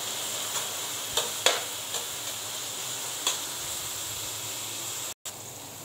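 Chopped onion sizzling in hot oil in a metal pan as it starts to soften, stirred with a spoon that clicks against the pan a few times. Near the end the sound cuts out for a moment and the sizzle comes back quieter.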